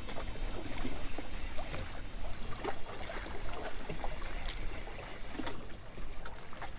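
Small wind-driven waves lapping and splashing against a rocky shoreline in quick irregular slaps, over a steady low rumble of wind on the microphone.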